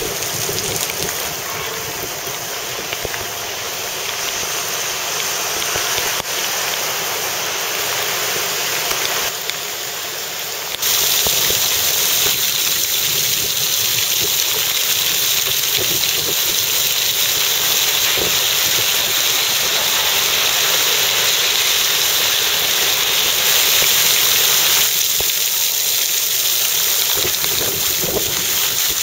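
Steady rush of hurricane rain and wind, with wind buffeting the microphone. It grows louder and hissier about eleven seconds in.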